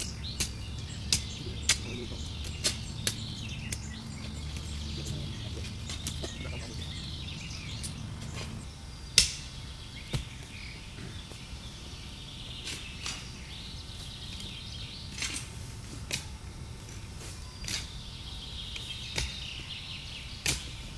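Digging by hand in stony forest soil: irregular sharp clicks and knocks of stones and tools striking, the loudest about nine seconds in, over a low steady rumble and a high chirping in the background.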